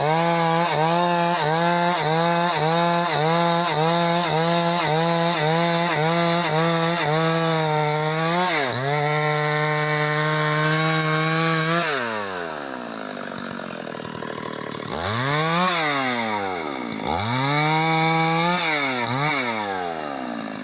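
Chainsaw cutting into a large tree, its engine pitch dipping in a regular rhythm about twice a second, then held steady. About twelve seconds in the engine drops off, and it is revved up and down twice near the end.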